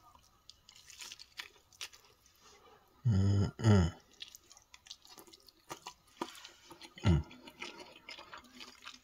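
A person chewing a mouthful of pizza with wet lip-smacking. Short voiced sounds break in about three seconds in and again around seven seconds.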